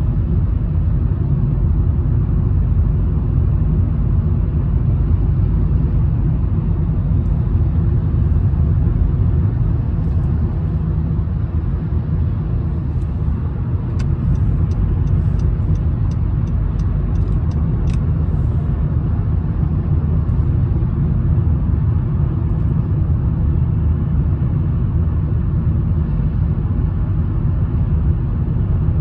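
Steady road and engine rumble inside a car's cabin at highway speed. Midway through, a run of about a dozen faint, evenly spaced ticks sounds for about four seconds.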